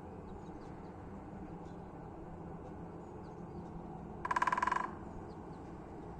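A crow gives one harsh caw about four seconds in, lasting about half a second, over a steady low background hum and faint small chirps.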